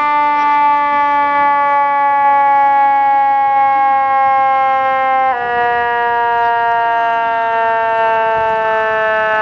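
Fire truck's siren sounding one long, unbroken tone whose pitch sinks slowly and drops a step about five seconds in.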